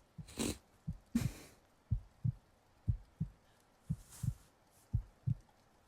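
A heartbeat heard close up, as with an ear against the chest: paired low lub-dub thumps, about one beat a second, steady throughout. A slow breath in and out comes near the start, with a fainter breath about two thirds of the way in.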